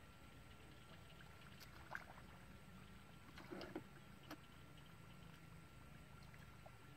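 Near silence, with a few faint splashes and sloshes of muddy shallow water from hands working in it, clustered around the middle.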